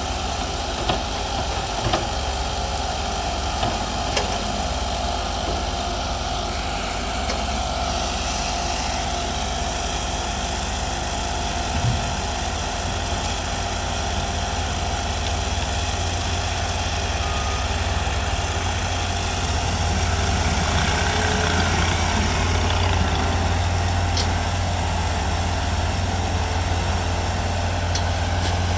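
Machinery engines at a sand-screening site running steadily, with a low hum that gets a little louder about two-thirds of the way in and a few scattered knocks.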